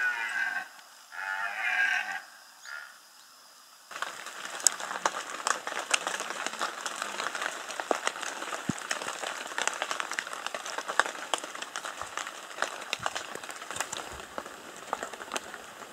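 A red deer stag roaring in the rut: two long roars and a short one. From about four seconds in there is steady rain, with many sharp drips falling on foliage.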